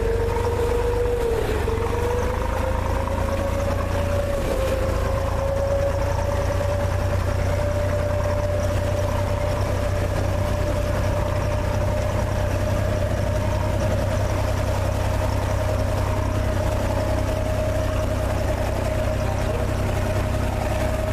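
Engine of a small wooden harbour boat running steadily as heard on board: a low hum with a clear drone. The drone dips briefly early on, then rises slowly as the engine speeds up a little.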